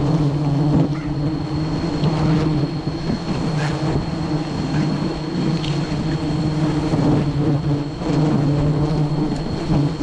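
A dense swarm of wild honeybees buzzing loudly and continuously, a deep hum that swells and fades.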